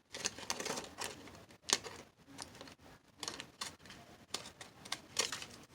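Pinking shears cutting along the edge of a paper card: a run of irregular crisp snips and clicks.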